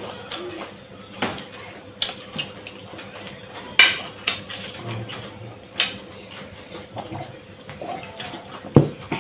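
Tableware clinking during a meal: scattered clinks and knocks of plates, bowls and steel tumblers on a table, the loudest about four seconds in, over a faint steady hum.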